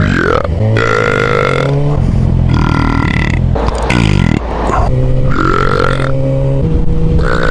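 A man belching loudly, a string of long drawn-out burps one after another, with a motorcycle engine running underneath.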